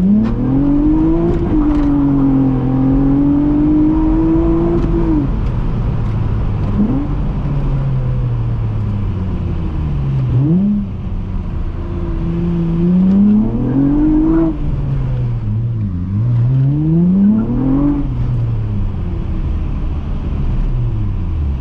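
Honda J32A3 3.2-litre V6 engine pulling up through the revs and dropping back at each gear change, three climbs in all, with a short blip of the throttle in between.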